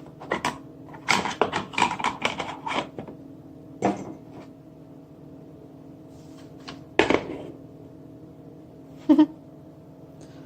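Quick clicks and clatter of hard objects being handled, then single knocks about four, seven and nine seconds in, over a steady low electrical hum.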